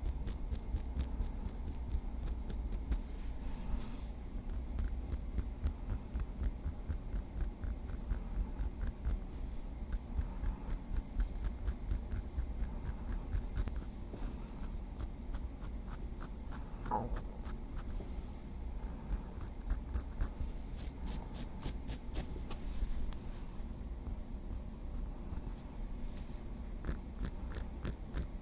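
Light, rapid tapping with a small wooden stick, several quick taps a second with some scratching texture, and a short rising squeak about two-thirds of the way through.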